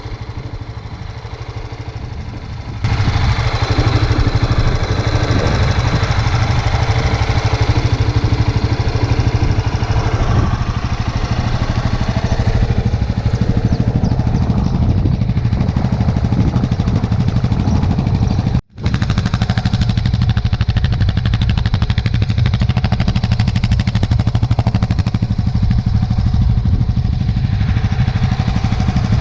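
Honda Tornado single-cylinder motorcycle engine running, with a fast, even exhaust beat. It gets much louder about three seconds in and stays steady, broken by a brief cut about two-thirds of the way through.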